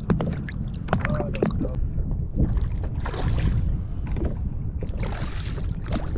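Kayak on the water: sharp clicks and knocks, and two splashing swashes about three and five seconds in, over a steady low rumble of wind on the microphone.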